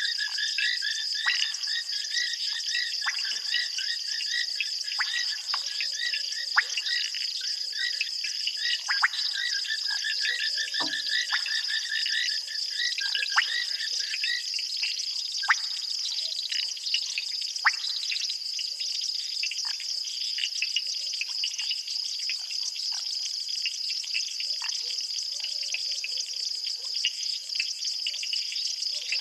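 Night chorus of frogs and insects: a steady high insect trill throughout, frogs calling in a pulsing chorus that fades out about halfway through, and scattered short, sharp frog calls.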